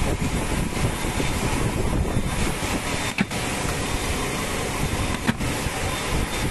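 Steady running noise of an aerosol can dome making line, with two sharp clicks about three and five seconds in.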